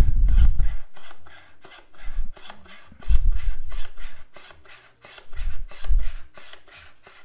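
Fellow Atmos vacuum canister lid being twisted back and forth on the glass jar, its built-in pump giving a rapid clicking rasp as it draws the air out. The rasp comes in three heavier strokes, about two to three seconds apart.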